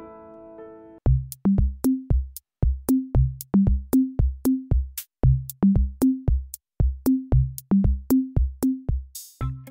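Background music: a piano phrase fades out, then about a second in an electronic drum-machine beat starts, with sharp clicks and deep bass hits, about two to three a second.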